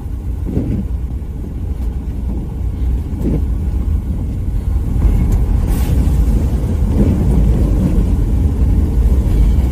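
Road and engine noise heard from inside a moving vehicle's cabin on a wet dirt road: a steady low rumble that gets louder about halfway through.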